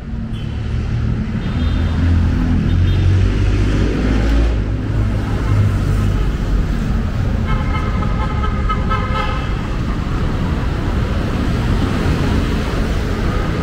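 Busy city street traffic: motorcycles and cars running past with a steady engine rumble, heaviest in the first half. Past the middle, a vehicle horn sounds for about two seconds.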